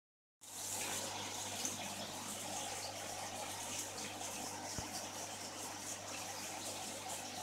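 Two aquarium air stones bubbling vigorously in a shallow tub of water: a steady fizzing, gurgling rush, over a low steady hum from the diaphragm air pump driving them.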